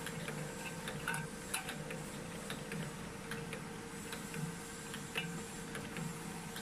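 Automatic star-wheel tin can sealing machine running with a steady hum and a low pulsing drone. Tin cans give scattered light clicks as they knock against each other and the metal guide rails while being fed in.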